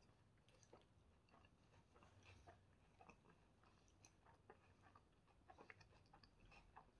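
Faint close-miked eating: chicken shawarma and flatbread being chewed, with irregular small wet clicks and crunches.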